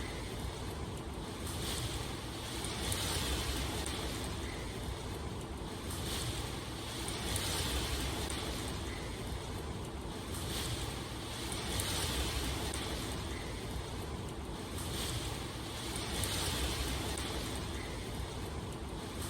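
Steady rushing water noise that swells and eases every two seconds or so.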